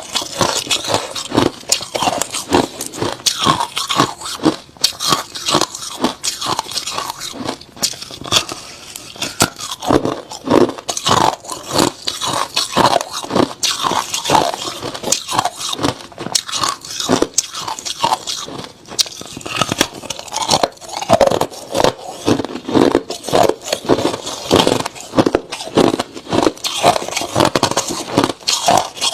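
Hard crushed ice being bitten and chewed close to the microphone: a continuous run of crisp crunches, several a second, with no pause.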